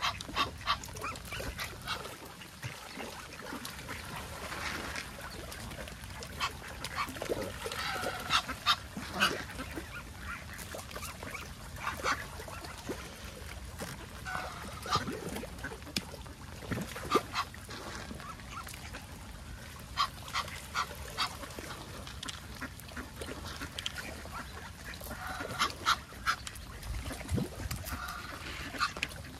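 Geese honking and ducks quacking, short calls coming in scattered clusters.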